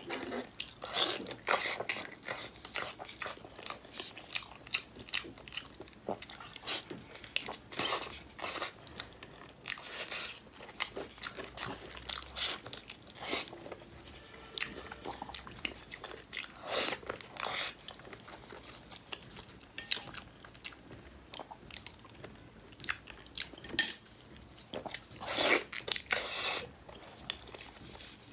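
Close-miked eating of braised pork trotters: irregular wet biting and chewing of soft skin and tendon, with louder clusters about a second in, around eight and ten seconds, and a loud pair of bites near the end.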